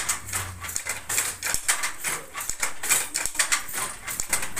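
A wooden handloom being worked: a rapid, steady run of sharp wooden clacks, about three a second, from the shuttle and beater and the foot-lifted harness levers.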